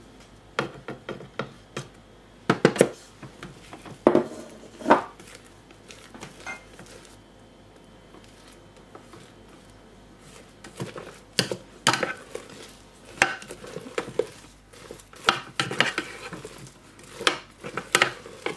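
Irregular clacks and scrapes of a plastic spatula against a Thermomix's stainless steel bowl as thick mustard paste is scraped down. There is a quiet stretch of a few seconds in the middle, and the knocks come more often near the end.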